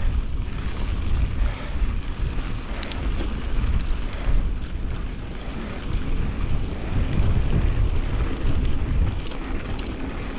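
Wind rumbling on the microphone while a mountain bike rolls along a dirt trail, a steady low buffeting with tyre noise and a few faint clicks and rattles from the bike.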